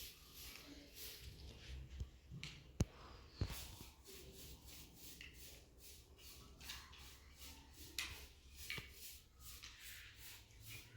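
Faint rustling and handling noises, with a few sharp clicks or knocks, the loudest two about three seconds in.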